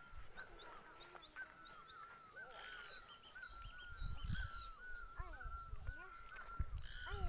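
Small birds calling continuously: a steady string of short chirps with quick, high rising notes above them, and a few louder calls. Intermittent low rumbling lies underneath.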